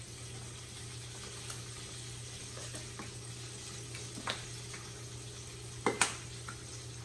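A floured whole red snapper frying in oil in a skillet: a steady, even sizzle. A few sharp clicks come about four seconds in and around six seconds in, the loudest near six seconds.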